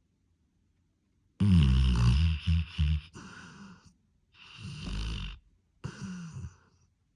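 Snoring: a loud snore with a falling pitch about a second and a half in, trailing off, then two quieter snoring breaths.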